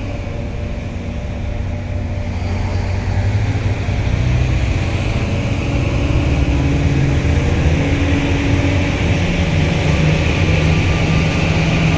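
Heavy diesel mining machinery, an excavator and haul trucks, running with a steady low drone that grows louder over the first few seconds and then holds.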